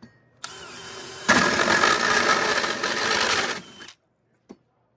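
DeWalt 20V cordless drill spinning up with a Spyder hole saw, then cutting into a wooden block for about two seconds before the motor stops and winds down.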